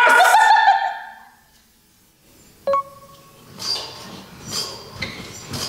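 A group shout fades out, then a single short bell-like ding rings out, then a person starts bouncing on a gym trampoline, its bed and springs giving soft rhythmic pulses about twice a second.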